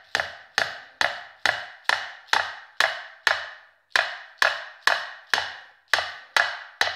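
Claw hammer driving a nail into a 2x4 board: a steady series of about fifteen sharp blows, roughly two a second, each ringing briefly.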